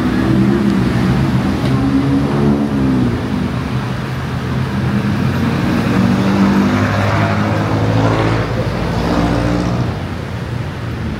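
Road traffic beside a city pavement: car and motorcycle engines running and passing close by. One engine rises in pitch as it accelerates, about seven seconds in.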